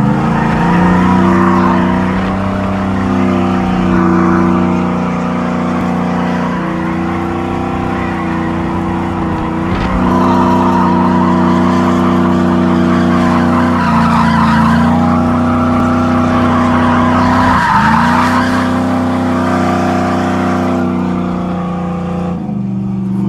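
Chevy 1500 pickup engine held at high revs while the rear tires, locked together by a welded differential, spin and squeal through continuous slides. The engine pitch stays nearly steady, dipping briefly three times.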